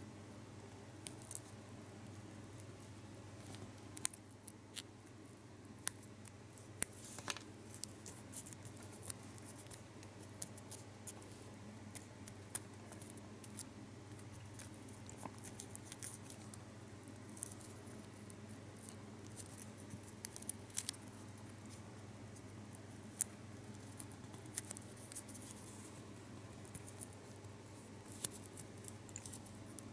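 Faint, irregular crinkles, clicks and scratches of a small foil-backed gum wrapper being folded and creased between fingertips, over a low steady hum.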